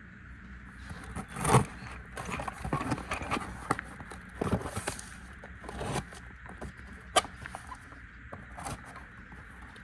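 Cardboard packaging being opened and handled: scattered scrapes, rustles and knocks, with a louder scrape about a second and a half in and a sharp click near the end.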